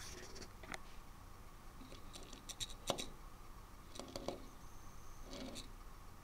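Faint scattered clicks and light scraping as a small plastic toy fire engine is handled and picked up off a wooden table.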